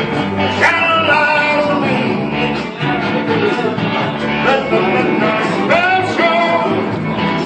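Rock-and-roll music with guitar and a steady beat. Pitched lines bend and slide through the middle range.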